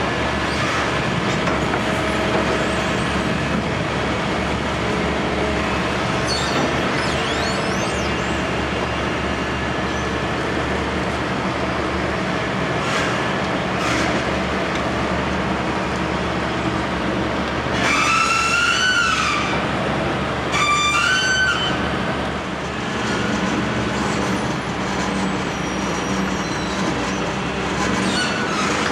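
Heavy construction machinery running steadily, with an engine hum throughout. Two short high-pitched metallic squeals come about two-thirds of the way through, a second or so apart.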